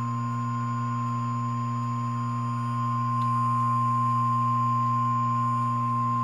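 Emergency Alert System attention tone: a single steady, high, pure beep held without a break, over a low electrical hum. It signals the start of an emergency alert, here a tornado warning.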